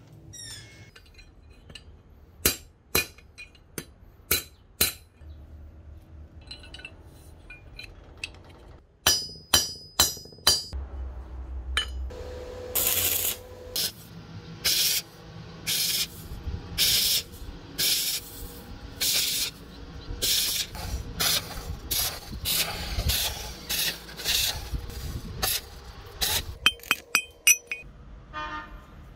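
Stick arc welder laying a string of short tack welds on a steel pipe: a run of crackling bursts, each about half a second long and roughly one a second, through the middle of the stretch. Before them come scattered sharp metallic clinks and taps, and a few more clinks near the end.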